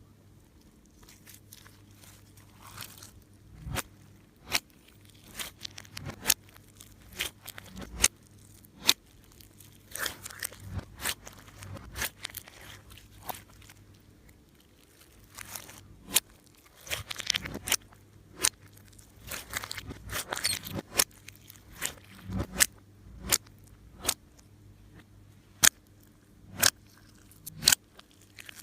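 Slime being worked by hand, giving off irregular sharp pops, clicks and crackles, about one or two a second, with quiet between them.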